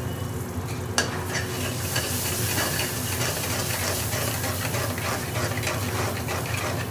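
A long metal spoon stirring and scraping tomato purée into a sizzling onion-and-spice masala in hot oil, in an aluminium pan. The spoon knocks on the pan about a second in, and the sizzle grows louder from about two seconds in as the purée is worked into the oil.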